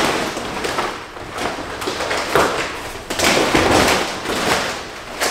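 Large plastic sheeting of an inflatable car capsule crinkling and rustling as it is pulled up and unfolded by hand, in several loud bursts.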